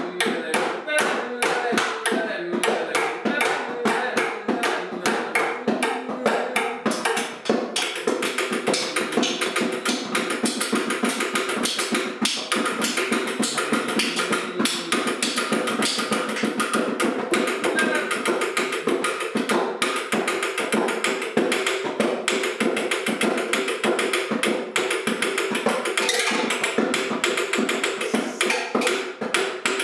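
Improvised hand percussion on bongos and household objects such as a glass jar, chairs and a wall, tapped to a fast steady beat, with a voice vocalizing over it.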